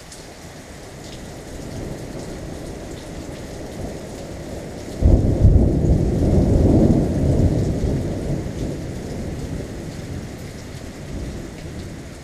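Thunder from an approaching thunderstorm: a low rumble builds, then about five seconds in a loud clap breaks and rolls away over several seconds, with rain hissing underneath.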